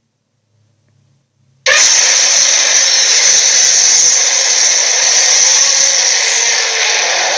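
Dragon sound effect: a loud, rough hiss without a clear pitch, starting abruptly about one and a half seconds in after a brief silence and then holding steady.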